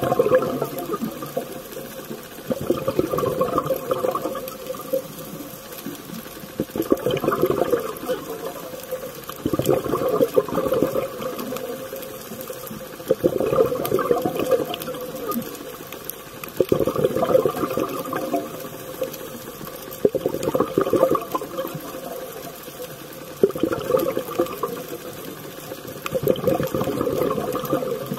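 Scuba diver's exhaled air bubbling out of the regulator underwater, a rush of bubbles about every three and a half seconds with quieter gaps between: steady, regular breathing.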